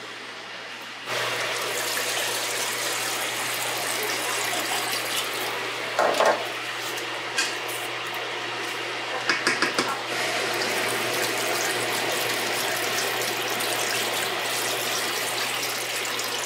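Chopped vegetables and tomato paste sizzling steadily in a hot stockpot, starting suddenly about a second in. A spoon knocks and scrapes against the pot a few times.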